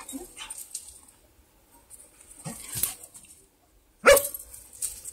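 A dog barks once, short and loud, about four seconds in, a playful bark given while crouched in a play bow, with a few quieter short sounds before it.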